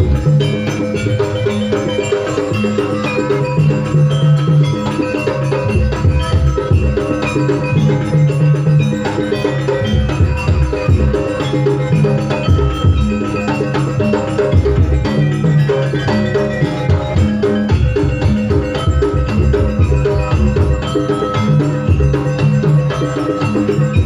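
Javanese gamelan-style dance music: hand drums beating a busy rhythm under ringing metal mallet percussion, playing on without a break.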